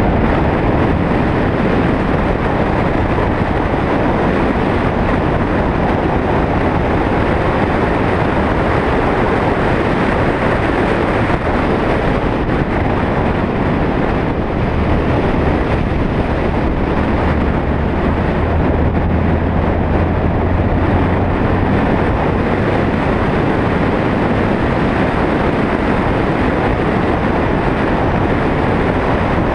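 A car being driven on a winding mountain road, picked up by a vehicle-mounted camera: steady road and wind noise over a low engine hum, which grows stronger for several seconds about halfway through.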